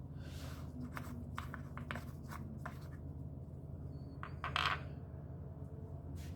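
Hands handling plastic oil-change gear, the oil bottle and funnel, making a series of small clicks and short scrapes. A louder scrape or rattle comes about four and a half seconds in.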